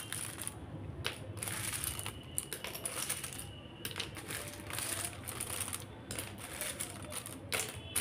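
Plastic alphabet letters clattering and clicking against each other and a plastic basket as a hand rummages through them, with a light rustle of paper slips; the clicks come irregularly.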